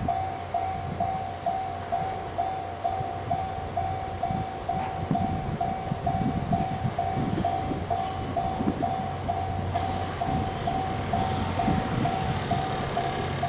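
Japanese level-crossing alarm ringing steadily at about two electronic dings a second. From about four seconds in, the Twilight Express Mizukaze train rumbles through the crossing, with a few sharp clacks from the wheels.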